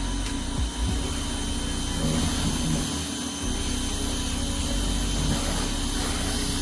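Pressure washer running steadily, a constant motor hum with hiss.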